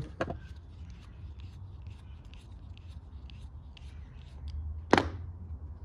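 Handling noise: a screwdriver tip scraping and tapping lightly on a lawn mower carburetor, with one sharp click about five seconds in, over a low steady hum.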